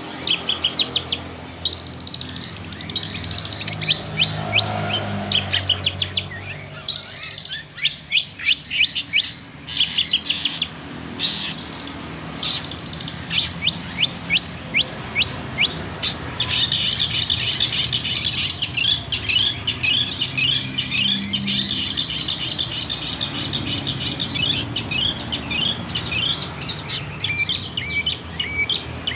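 Long-tailed shrike (cendet) singing: fast runs of sharp, high notes that sweep downward, with a dense, rapid stretch about halfway through.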